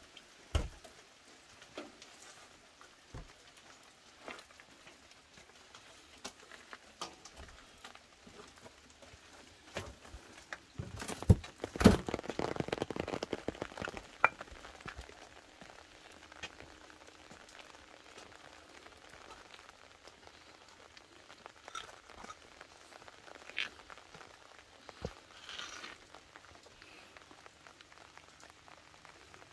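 Light rain: scattered raindrops and drips tapping on surfaces over a faint hiss. A louder patch of knocks and rustling comes about eleven seconds in and lasts a few seconds.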